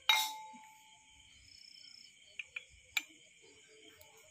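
Crickets chirring steadily at night. Right at the start a salt jar gives a sharp clink with a short ring, and a few light clicks follow near the end as salt is spooned into a clay cooking pot.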